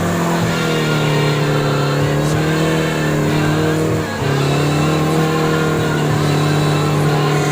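Offroad vehicle's engine running at steady revs, with a brief dip about four seconds in.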